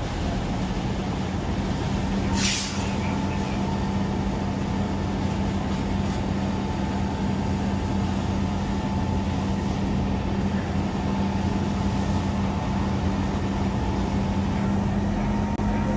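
Fire engine running steadily at pumping speed to supply a hose line, a constant low drone with a hiss of spraying water over it. A short, sharp hiss cuts in about two and a half seconds in.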